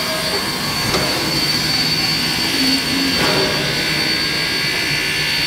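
Steam train formed by Queensland Rail C17 class steam locomotive 967 and its carriages rolling slowly past: a steady hissing rumble, with a light knock about a second in and another after three seconds.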